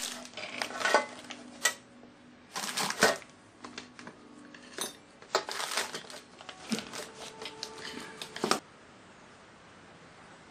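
Light metallic clinks and taps of hand tools and small metal parts being worked, irregular and scattered, stopping abruptly after about eight and a half seconds.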